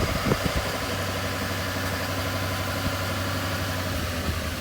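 Heavy truck's diesel engine idling steadily, with a few light clicks in the first half second.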